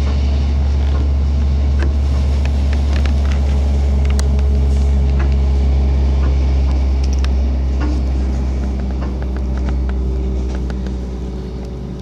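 A loud, steady low rumble with scattered light clicks, easing off a little in the last few seconds.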